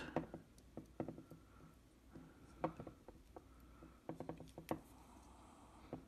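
Faint, scattered clicks and ticks of a tiny screw and a precision screwdriver against the metal plate of a DJI Phantom 4 gimbal, irregular, with a small cluster about four seconds in.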